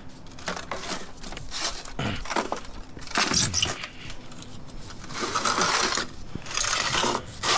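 Scrap aluminium pieces being worked apart by hand: a run of metallic clinks, knocks and scrapes.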